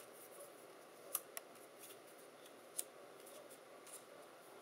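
Faint, light ticks of die-cut cardstock pieces being handled and set down on a cutting mat: two close together about a second in, and another near three seconds, over quiet room tone.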